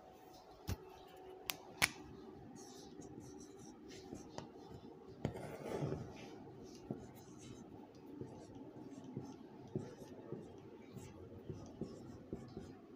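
Marker pen writing on a whiteboard: faint, irregular short strokes and ticks as words are written out, after a few sharp clicks in the first two seconds.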